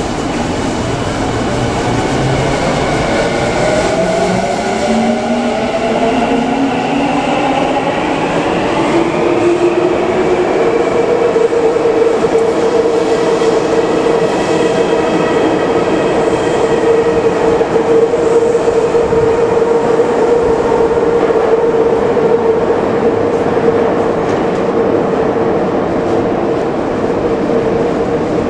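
Tokyu 5050 series electric train pulling away from an underground station. Its motor whine rises in pitch in several stepped glides over the first ten seconds, then gives way to a steady tone and the rumble and clatter of the cars running past as the train speeds off into the tunnel.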